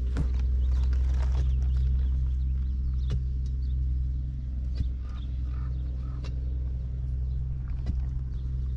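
A motor running with a steady low hum, with scattered light clicks and knocks.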